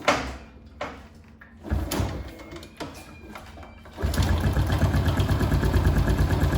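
A few knocks and a short cranking attempt, then about four seconds in a Honda Pop's small single-cylinder four-stroke engine starts and idles with a steady, fast pulse. It runs with a screw near the gearshift shaft backed off to drip oil, which the owner does to cure an engine noise left after the wrong screw came out during an oil change.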